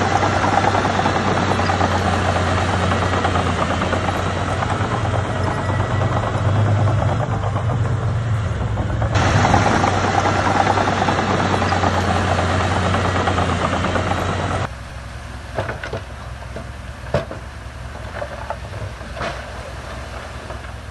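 Diesel engine of heavy earthmoving machinery running loudly under load. About three-quarters through, the sound drops abruptly to a quieter engine rumble with scattered clanks and knocks.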